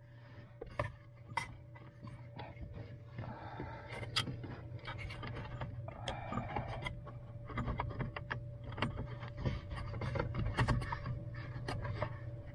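Irregular small plastic clicks, taps and rustling from fingers working wiring-harness connectors behind a Jeep Wrangler's lower dash panel, trying to press the release tab and pull a plug free. A steady low hum runs underneath.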